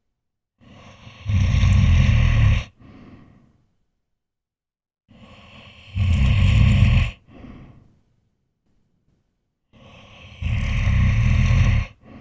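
A person snoring: three loud, low snores about four and a half seconds apart, each with a softer breath just before and after, and silence between breaths.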